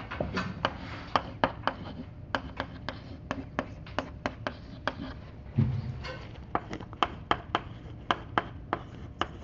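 Chalk on a blackboard: a quick run of sharp taps and clicks, about three or four a second, as someone writes. A single dull thump about halfway through.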